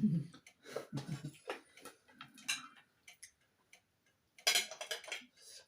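Close-up eating sounds: irregular chewing and mouth clicks, with a louder crackly noise about four and a half seconds in.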